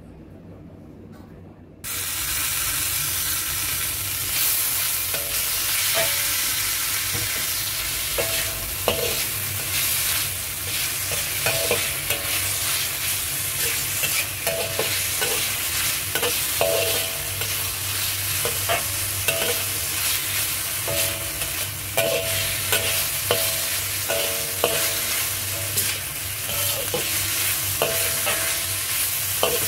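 Meat sizzling loudly as it is stir-fried in a hot wok, with a metal spatula scraping and clanking against the wok in short, irregular strokes. The sizzle starts suddenly about two seconds in.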